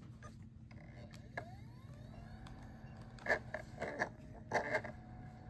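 An onn portable Blu-ray player's disc drive spinning up with a faint rising whine, then several light clicks of its buttons from about three seconds in.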